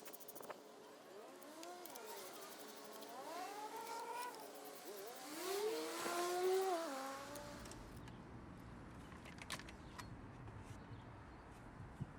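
A motor vehicle's engine accelerating, its pitch climbing and dropping back about three times, loudest about six seconds in, then fading. A few light clicks follow near the end.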